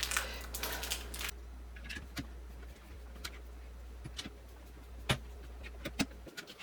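Small, scattered clicks and taps of screws and lock parts being handled while mounting a smart lock's interior assembly, after a brief rustle at the start.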